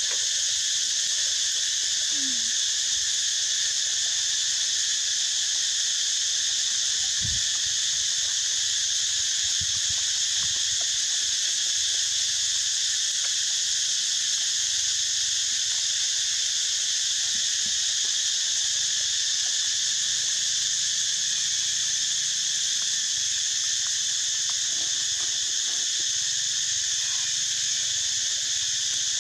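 A steady insect chorus: a continuous, high-pitched drone of chirring insects that holds unchanged.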